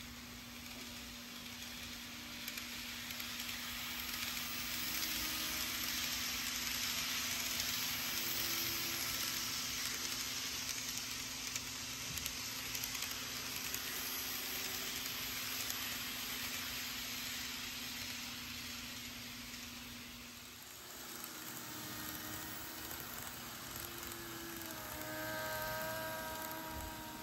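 N-gauge model electric trains running past on the layout track: a hissy rolling of wheels on rails that swells as a train goes by, over a low steady motor hum. A second train's whining motor tones come in near the end.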